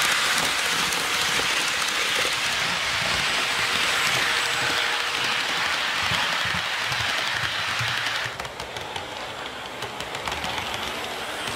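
HO scale model commuter train running on its track: a steady rolling hiss from the wheels and drive with faint irregular clicking, dropping suddenly to a quieter level about eight seconds in.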